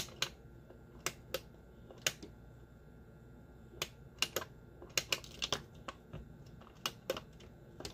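Irregular sharp plastic clicks, single and in quick pairs, from a facial steamer's power switch being pressed and fiddled with while its light won't stay on.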